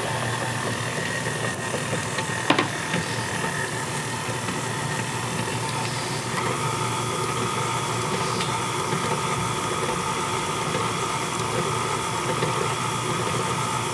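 Electric tilt-head stand mixer running steadily, beating a thick cookie dough, with a sharp click about two and a half seconds in. Its motor whine drops in pitch about six seconds in.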